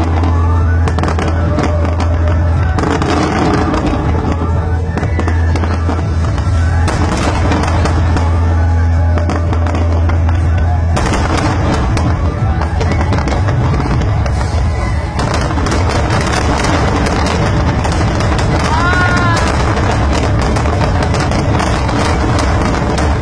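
Aerial fireworks bursting in a rapid, continuous series of bangs and crackles.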